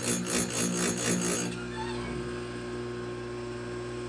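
Oregon electric chain grinder: the grinding wheel rasping against a chainsaw tooth in quick short strokes, about four a second, over the steady hum of its motor. The rasping stops about a second and a half in, leaving the motor humming alone.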